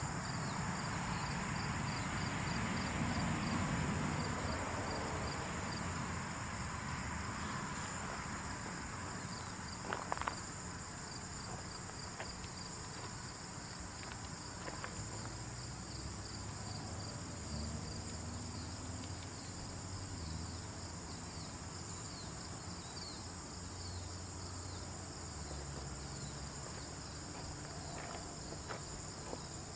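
Steady high insect chirring with a fast even pulse, over a low noisy haze, with a few faint clicks about a third of the way in and near the end.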